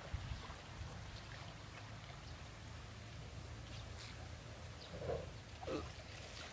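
Faint splashing and dripping of water as a person wades and works in a shallow muddy pond, over a steady low rumble.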